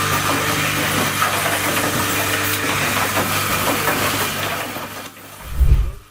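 Automated cable-holder terminal assembly machine running: a steady mechanical hum with a hiss over it, then a dip and one short low thud near the end.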